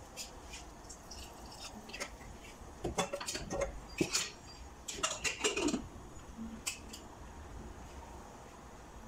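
Metal clinks and clatter from an aluminium pressure cooker and its lid as the lid is put on and closed, in clusters of sharp knocks between about three and six seconds in.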